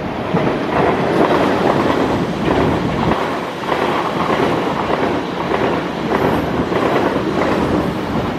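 A train passing on the line: a steady loud rush of wheel and rail noise with some clickety-clack of wheels over rail joints.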